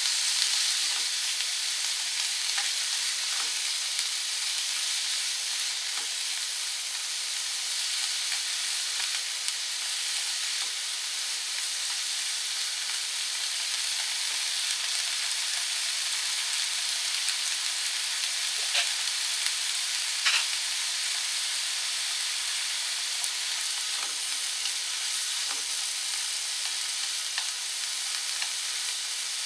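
Green peppers stir-frying in a hot pan, sizzling steadily, with a few sharp clicks of a utensil against the pan.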